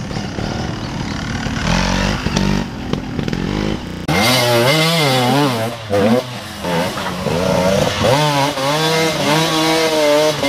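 Off-road motorcycle engine running. After a cut about four seconds in, a bike revs hard up and down over and over, the throttle worked under load as it climbs a steep muddy slope.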